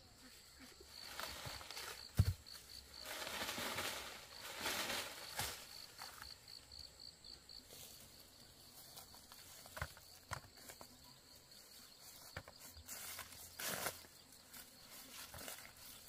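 Rustling and handling noises with one heavy thump about two seconds in. Behind them an insect's high chirp pulses about five times a second, in two spells of a couple of seconds each.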